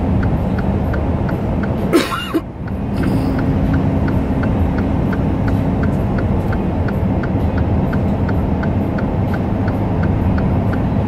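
Semi-truck's engine and road noise droning steadily inside the cab, with the four-way hazard flashers ticking in a quick even rhythm throughout. A short sharp burst stands out about two seconds in.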